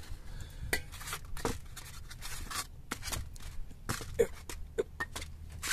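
Disc brake pads handled and set down on a plastic tray: a string of short, irregular clacks and knocks, with brief rustling between them.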